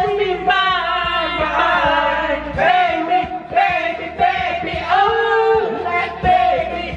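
Young men singing karaoke: male voices singing into an amplified microphone over a loud karaoke backing track with a steady beat.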